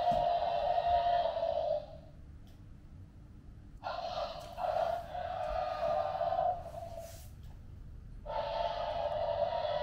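Dinosaur roars in the manner of a T. rex: long, rough, breathy roars of a few seconds each, with short pauses between. One ends about two seconds in, another runs from about four to six and a half seconds, and a third starts near the end.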